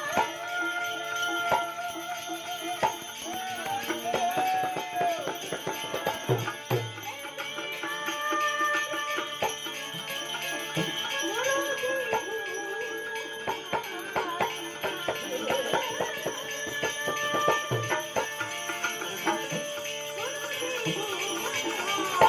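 Bhajan music: a melody carried over steady jingling hand percussion.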